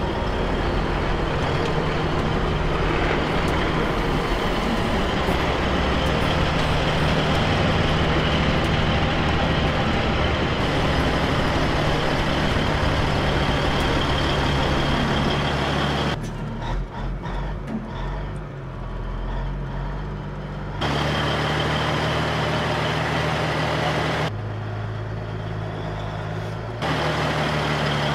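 Heavy-duty wrecker tow truck's diesel engine idling with a steady low hum. The sound drops and comes back abruptly several times in the second half.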